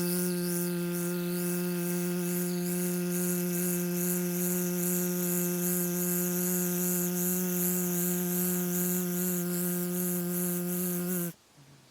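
A steady low drone with a rich stack of overtones and a pulsing hiss above it, holding one pitch and cutting off abruptly near the end.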